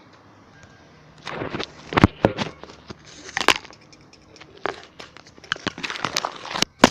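Knocks, scrapes and rustles of the recording phone being handled, then the phone falling and striking the floor with a sharp clatter near the end.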